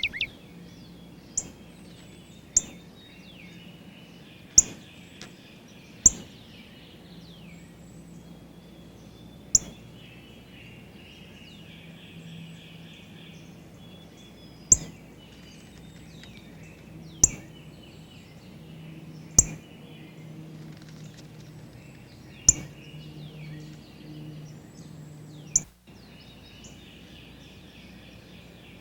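Small backyard birds chirping and calling, with short trills, over about ten sharp taps spaced one to five seconds apart that stand out as the loudest sounds.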